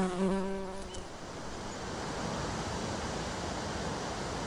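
A bumblebee buzzing for about the first second, then the steady rush of flowing river water.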